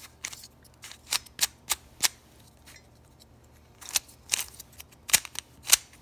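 Plastic layers of a brand-new stickerless QiYi 3x3 speed cube being turned by hand, giving a string of sharp, irregular clicks as the faces snap round on its first turns.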